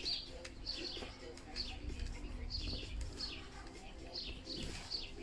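A songbird chirping over and over: short high notes that fall in pitch, repeated about every half second.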